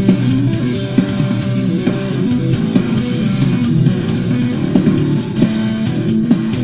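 Custom 10-string tapping instrument of the Chapman Stick kind, played two-handed through distortion: a rock line of many quickly tapped notes over low bass notes.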